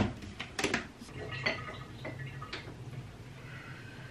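Clicks and knocks of a mug and kitchen things being handled on a worktop: a sharp click at the start, a quick run of knocks just after, and one more about two and a half seconds in. Between them a low hum runs for about a second and a half.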